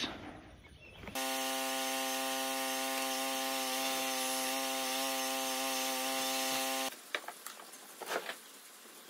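Corded electric drill running at a steady speed, boring down into the plywood floor. Its motor whine holds one pitch for about six seconds and cuts off abruptly, followed by faint knocks of handling.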